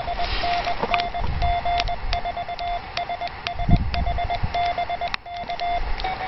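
Morse code (CW) from an amateur radio transceiver: a single steady tone keyed in dots and dashes, over a background hiss.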